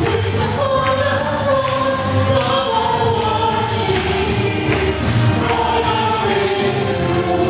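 Gospel choir singing into microphones over backing music with a steady beat.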